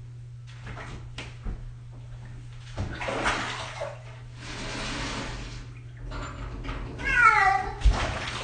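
Bath water splashing and running in a tub for a few seconds, then the domestic cat being bathed lets out one loud meow that falls in pitch, about seven seconds in, over a steady low hum and a few knocks.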